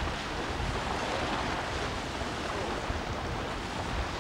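Wind buffeting the microphone in an uneven low rumble, over a steady wash of choppy water.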